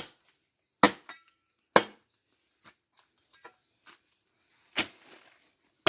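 Sharp wooden knocks of firewood pieces striking one another as they are thrown down and stacked: three knocks about a second apart, fainter clatter, then two more near the end.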